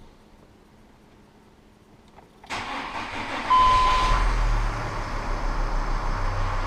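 Volkswagen Crafter 2.5 TDI five-cylinder diesel cranking about two and a half seconds in, catching a second later with a short beep, then idling steadily. There is no knocking, since the crankshaft damper pulley has just been replaced.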